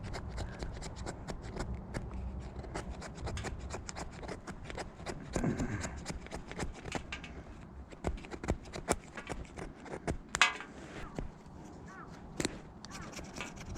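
Knife blade shaving and scraping a stick of fatwood, a run of quick, irregular rasping strokes to make tinder for lighting a fire, with one sharper, louder stroke about ten seconds in.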